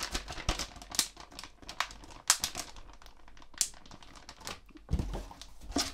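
Clear plastic packets of soft-plastic fishing lures crinkling and rustling as they are handled and folded, in a run of irregular crackles.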